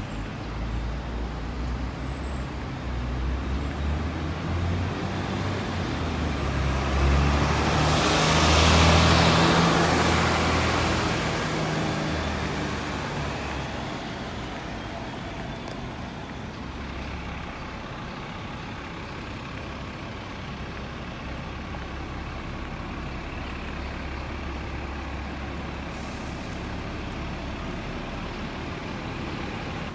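Street traffic: a heavy vehicle's rumble builds up, is loudest about nine seconds in and fades away, leaving a steady low traffic rumble.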